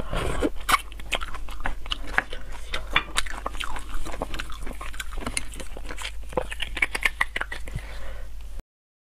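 Close-miked eating of braised beef bone marrow: sucking the marrow out of the bone and chewing it, a dense run of wet smacks and mouth clicks. It cuts off abruptly near the end.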